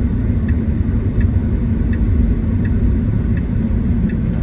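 Steady low road and tyre rumble inside a moving Tesla electric car's cabin, with no engine note. A faint, even ticking, somewhat under two ticks a second, runs over it: the car's turn-signal indicator as it nears the stop-sign intersection.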